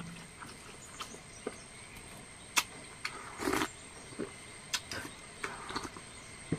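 Close-up eating sounds: scattered chewing and lip-smack clicks, with a short slurp from a cup a little after halfway.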